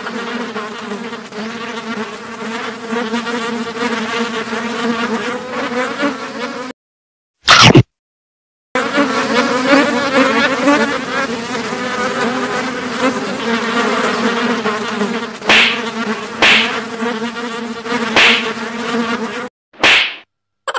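A steady, fly-like buzzing that cuts out abruptly twice, each gap holding one short, very loud burst of sound.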